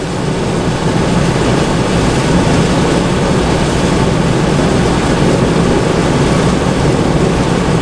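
DAF XF truck heard from inside the cab while driving on the motorway: a steady engine drone with road and wind noise, growing a little louder over the first second, then holding even.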